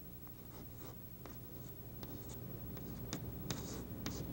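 Chalk writing on a blackboard: a string of short scratchy strokes and light taps, over a steady low hum.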